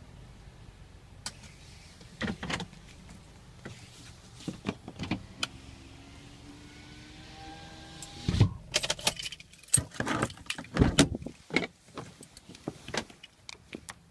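Car cabin noise: scattered clicks and knocks, then from about six seconds in a faint whine rising slowly in pitch for about two seconds. A run of loud knocks, clunks and rattles follows.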